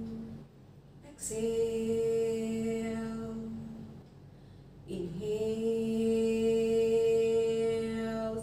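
A woman's voice chanting in long, steady held notes: one a little over a second in lasting about two seconds, and another that starts about five seconds in with a slight upward slide and is held for over three seconds.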